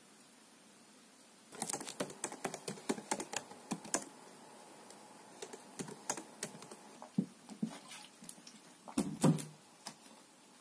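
Typing on a laptop keyboard: quick runs of key clicks start about a second and a half in, thin out after a short pause, and end with a few louder, duller strokes near the end.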